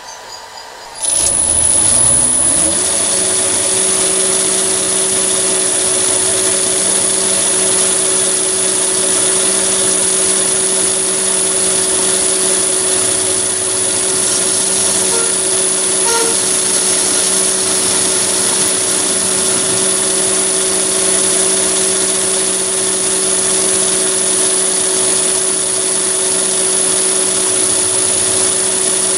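Small metal lathe switched on about a second in, its motor and spindle spinning up for about a second and a half and then running steadily, with a high whine.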